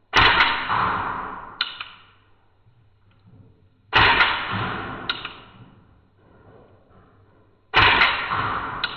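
Three shots from a WE Browning Hi-Power gas blowback airsoft pistol on green gas, slowed down. Each is a sharp bang that dies away over about two seconds, with a second sharp click about a second and a half after it.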